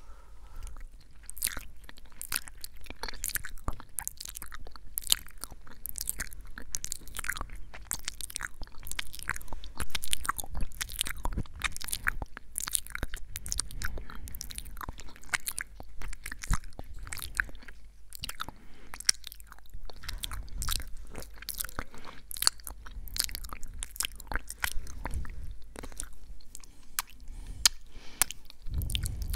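ASMR mouth sounds: a quick, irregular run of mouth clicks, many to the second and without a break.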